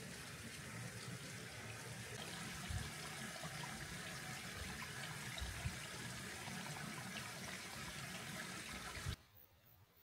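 Running water of a stream, a steady rushing with a few soft low thumps. It cuts off suddenly near the end.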